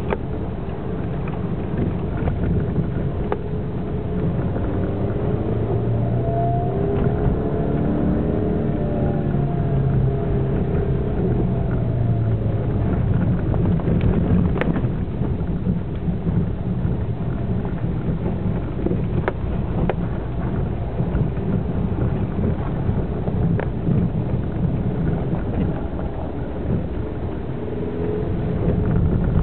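Suzuki SX4 iAWD driving along a rough forest trail, heard from inside the cabin: a steady engine and tyre rumble, with the engine note rising and falling for several seconds near the start and occasional sharp knocks.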